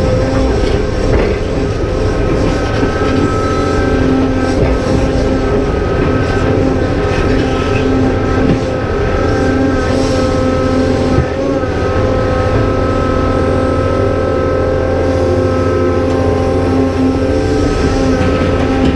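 Cat 390F excavator's C18 diesel engine running hard under load, with the steady whine of its hydraulic pumps as the boom and bucket work.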